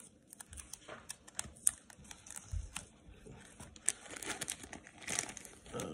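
Plastic card sleeves and packaging crinkling as sports cards are handled, with scattered light clicks and rustles and a denser rustle about five seconds in.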